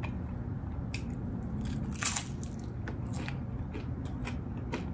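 Crunchy bites and chewing of a crispy fried egg roll, with the loudest crunch about two seconds in.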